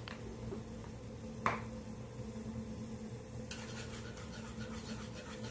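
Quiet kitchen sounds at a stove: a steady low hum, a single light click about a second and a half in, and a faint hiss with small ticks setting in past the halfway point.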